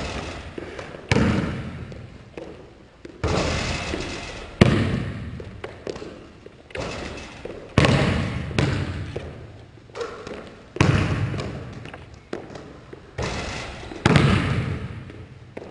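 Basketball bouncing hard on a hardwood gym floor and slapping into hands during bounce passes, about a dozen thumps roughly a second apart, each echoing through the gym.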